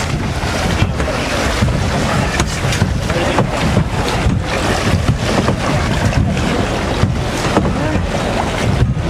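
Wind buffeting the microphone, a loud steady rush that surges and dips irregularly, over seawater sloshing against a boat's hull.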